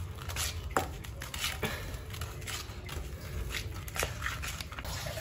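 Metal spoon stirring a thick flour-and-water batter in a stainless-steel bowl: soft scraping with a few light clicks of the spoon against the bowl as the lumps are worked out.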